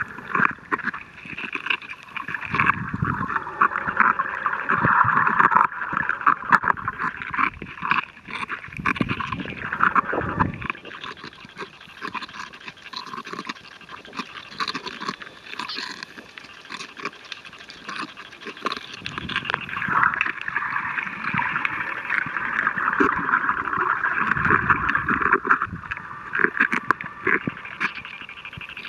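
Underwater noise picked up by a camera held below the surface on a coral reef: a rushing water noise that swells and fades, with a dense scatter of small crackling clicks and occasional low surges.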